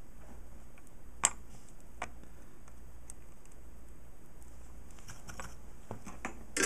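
Scattered light ticks and clicks from soldering leads on a small circuit board with an iron tip and solder wire, over a low steady hum. One sharp click comes about a second in, and a louder clatter of handling comes at the very end as the board is picked up.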